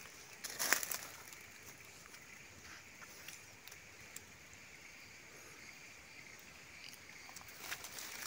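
Footsteps crunching on dry leaf litter: one crunch about a second in, then several more near the end. Under them runs a steady high-pitched drone of forest insects.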